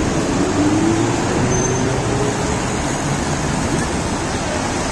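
Road traffic on a busy city street: a steady rumble of cars driving past, with one engine note rising slowly over the first two seconds.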